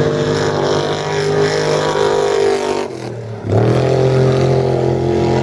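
Trophy Truck Spec off-road race truck engine running hard at high revs. About three seconds in the note falls away and briefly drops, then surges loudly again.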